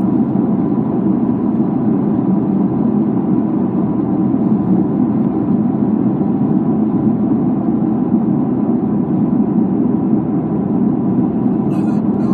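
Steady low rumble of vehicle noise, even and unbroken, like a car heard from inside while driving.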